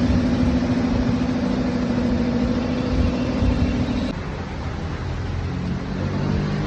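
A motor running steadily with a pitched hum over a low rumble. The hum drops out about four seconds in, and the rougher low running sound carries on.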